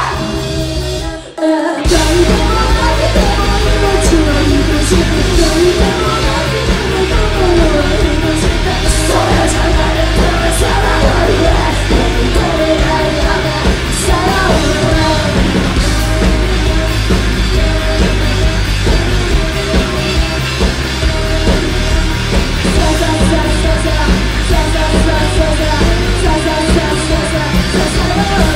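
Live rock band with electric guitar playing loud, driving music. About a second in the band stops dead for half a second, then crashes back in together and keeps going.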